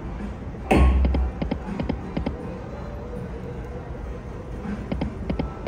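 Huff N' Puff video slot machine spinning its reels: a low thump as the spin starts about a second in, then a quick run of short clicks as the reels stop, with more clicks near the end, over the game's background music.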